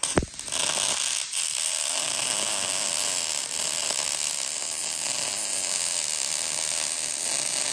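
Electric arc welding on the steel deck of a brush hog: the arc strikes suddenly at the very start, then burns steadily as a bead is run.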